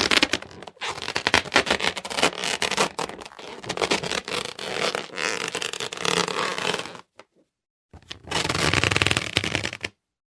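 Rubber balloon squeaking as it is rubbed, in long runs of rapid, rasping squeaks: one run of about seven seconds, a short pause, then another of about two seconds.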